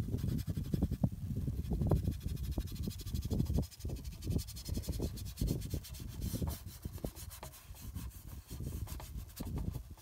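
Stiff bristle paintbrush scrubbing paint onto a painting panel: a dry rubbing scratch in irregular short strokes. Under it is a low, uneven rumble of wind on the microphone.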